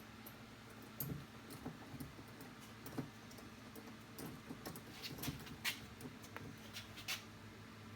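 Scattered light clicks and taps of a door handle and its studs being handled and fitted into a Jeep Wrangler JK door, over a faint steady hum.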